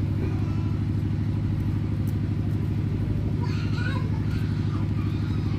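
An engine running steadily at a constant speed: a low, even drone.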